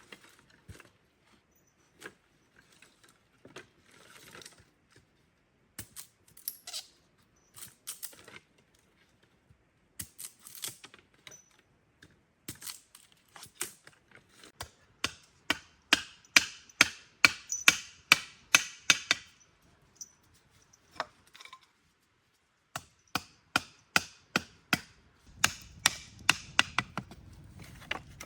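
Repeated sharp chopping blows on wood, scattered at first, then quick runs of about two or three strikes a second, the loudest in the middle and near the end.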